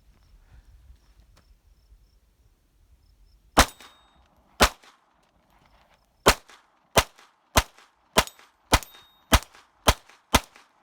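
Ten .22 LR pistol shots from a Springfield XD9 with an Advantage Arms .22 LR conversion kit, firing CCI Mini-Mag rounds. Two shots come about a second apart, and after a short pause eight quicker shots follow about every half second, the action cycling each round until the magazine runs dry.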